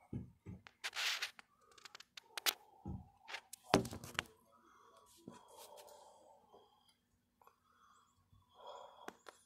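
Close handling noise of a phone being moved indoors: a run of knocks, scrapes and rustles, loudest in the first half, then softer scattered rustles.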